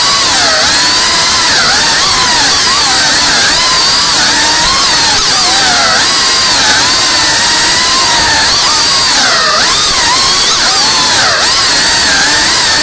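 Small cinewhoop FPV drone's brushless motors and ducted propellers whining loudly, the pitch constantly rising and dipping as the throttle changes.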